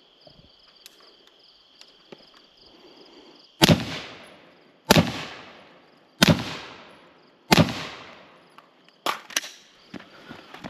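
Four gunshots about a second and a quarter apart, each trailing off in a long echo, followed near the end by two quieter sharp cracks in quick succession.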